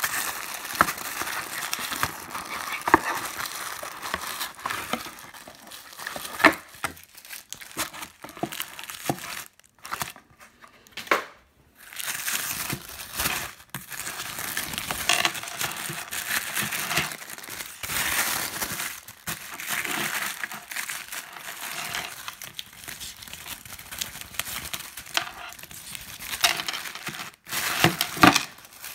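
Black tissue paper crinkling and rustling in stops and starts as it is unwrapped from a gift box by hand, with a few sharper clicks.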